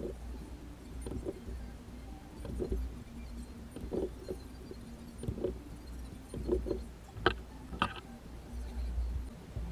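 Scattered light knocks and clicks of objects being handled, two sharper clicks near the end, over a steady low rumble.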